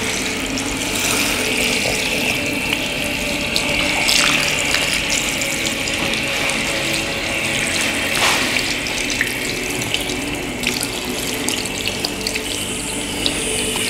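Steady running water splashing as it is poured over a body being washed.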